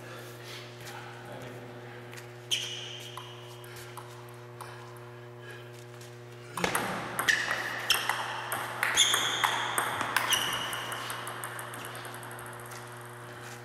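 Table tennis ball being played: one sharp ping about two and a half seconds in, then a rally of quick ping-pong clicks off the bats and table from about halfway through, ringing in the hall and fading out near the end. A steady low hum runs underneath.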